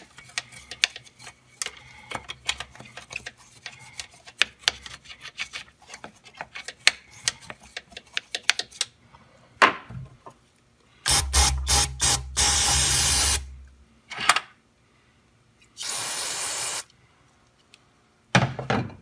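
Toothbrush scrubbing the inside of a car's throttle body: a quick run of scratchy brushing strokes and clicks. Past the middle come two bursts of steady hiss, of about a second each.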